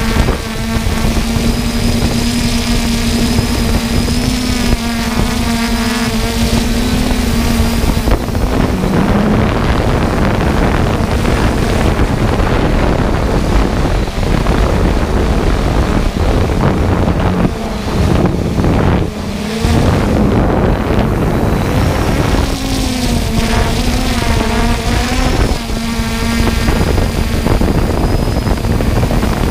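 Multirotor drone's motors and propellers whining steadily, with wind noise on the onboard microphone. From about eight seconds in the whine breaks up into rougher, gustier noise; it comes back steady, with a wavering pitch, in the last several seconds.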